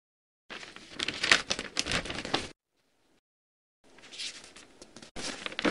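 Rustling, crinkling noise in two spells of about two seconds each, with a short silent gap between them.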